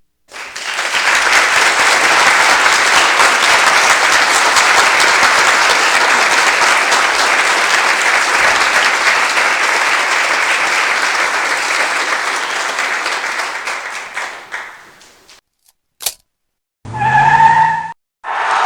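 Stock applause sound effect: a crowd clapping steadily for about fifteen seconds, then fading out. A single sharp click follows, and near the end comes a brief pitched sound effect with a rising low tone.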